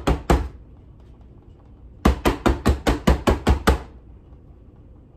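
Metal baking pan full of cake batter being rapped quickly and repeatedly on the kitchen counter to knock the air bubbles out, about five knocks a second in two runs with a pause between.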